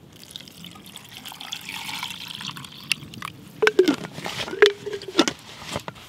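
Water poured from a bottle into a metal camping cup holding pieces of dried beef, a splashing trickle for about three seconds. Then several sharp knocks and scrapes as things are handled.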